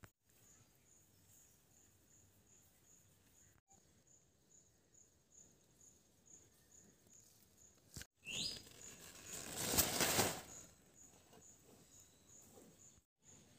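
Faint rural outdoor ambience with a high chirp repeating steadily about three times a second. A louder rustling noise comes in about eight seconds in and fades out about two seconds later.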